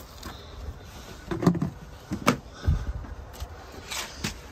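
Scattered knocks and clunks of wood, about five in a few seconds, from a wooden pen door with a wire-mesh frame being handled.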